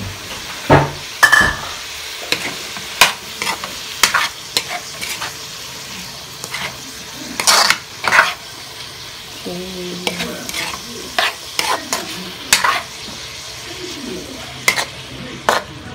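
Meat and green peas sizzling in a metal wok, a steady frying hiss, while a metal spatula stirs them and scrapes and clacks against the pan again and again at an uneven pace.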